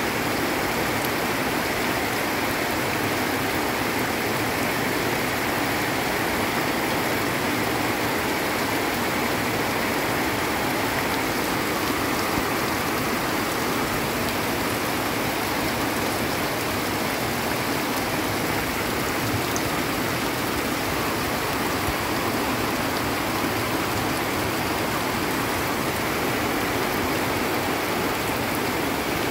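Heavy tropical downpour: a steady hiss of rain falling on leaves and soil, mixed with muddy runoff water rushing down the slope.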